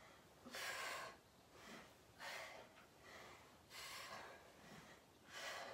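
A woman's faint, heavy breathing from exertion mid-exercise, a short breath about every second.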